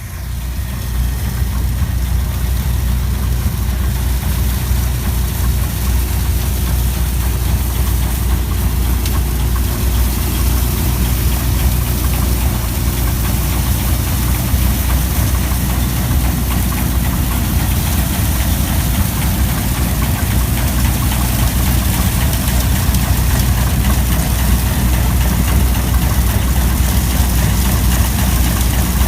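Old engine idling steadily, loud and low-pitched, fading in at the start.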